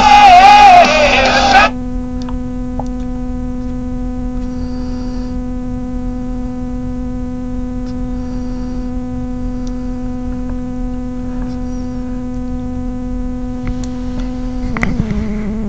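A loud snatch of singing cuts off suddenly under two seconds in, leaving a steady electrical hum with a stack of even overtones.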